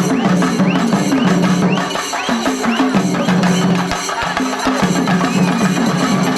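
Shinkari melam music: fast, dense stick-drumming on chenda drums over a stepping melodic line.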